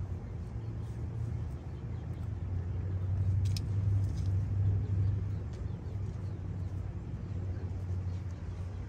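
Steady low rumble, a little louder about three to five seconds in, with one faint click partway through.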